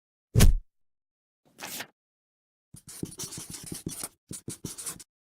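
A sharp thump, then a short swish, then a couple of seconds of quick scratchy strokes, like scribbling or scraping, with a brief break near the end.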